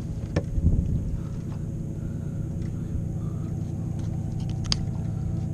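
Steady drone of an airboat's engine and propeller. A knock comes about half a second in and a sharp click near the end.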